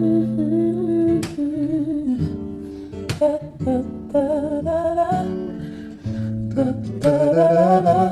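Background music: a song with acoustic guitar and a wordless sung or hummed melody.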